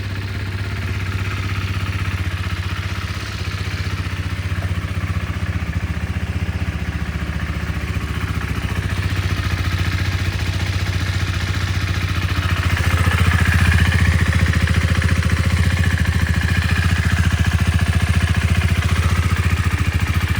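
Husqvarna Vitpilen 401's single-cylinder four-stroke engine idling steadily just after being started, running so the freshly changed oil can circulate. It grows a little louder about two-thirds of the way through.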